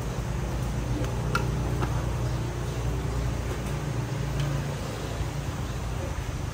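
A motor running steadily with a low hum that swells a little in the middle, with a few light clinks, like glass or ice, about one and two seconds in.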